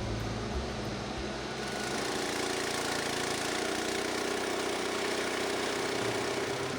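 Small single-cylinder gasoline engine running steadily, the Frontier OS23 sawmill's 7 hp Briggs & Stratton. About one and a half seconds in the sound turns brighter and hissier, then holds steady.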